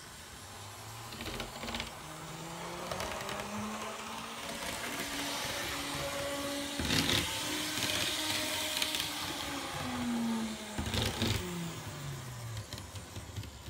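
Kato N scale EMD F3B model locomotive running on its track, a small electric motor and gears whirring. The whir grows louder and rises in pitch, then falls in pitch and fades as the locomotive moves away, with a few sharp clicks along the way.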